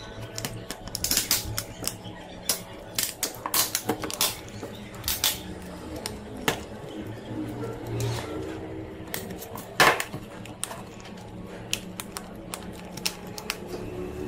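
Handling noise from an iPhone on a wooden table: irregular sharp clicks and taps of fingers, glass, metal and plastic as its screen is worked and its SIM tray is pulled out and set down, with one louder knock about ten seconds in.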